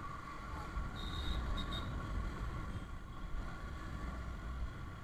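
Yamaha R15 V3 motorcycle riding at low speed in city traffic, its single-cylinder engine running under a steady low rumble of wind on the camera microphone. A brief high-pitched chirp sounds about a second in.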